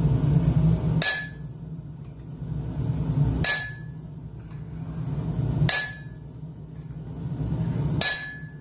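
Four spaced hammer blows on hot steel at the anvil, each with a short bright metallic ring, while a punch or drift taper is forged. Under them runs a low rumble that swells between the blows.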